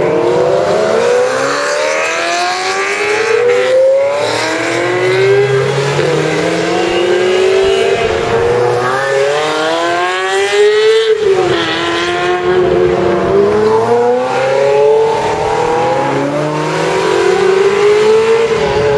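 Ferrari sports cars accelerating hard away one after another, the engines revving up through the gears: the pitch climbs again and again and drops sharply at each upshift.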